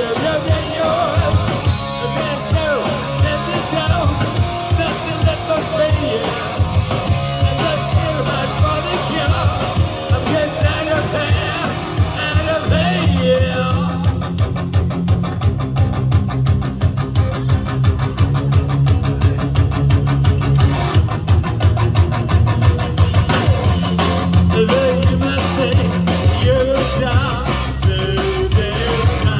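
Live punk rock band playing loudly: distorted electric guitar, bass and drum kit, with some singing. The drums settle into a fast, driving beat about halfway through.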